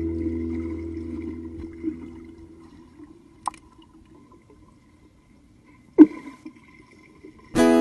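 A held guitar-music chord fades away, leaving faint, muffled underwater pool noise. A thin click comes about three and a half seconds in and a louder, sharp click about six seconds in. Guitar music starts again near the end.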